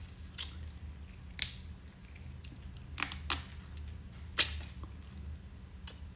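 Sucking on a boiled crawfish: about five short, sharp slurps, the loudest about a second and a half in, over a steady low hum.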